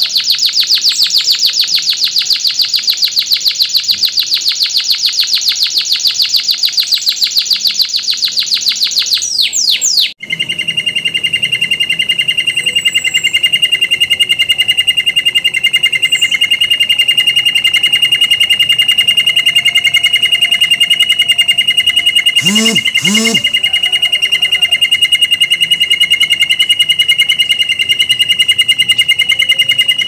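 Domestic canary singing a long, very fast rolling trill. A high, rapid roll breaks off about a third of the way in, and after a brief pause a lower, steady roll follows and carries on.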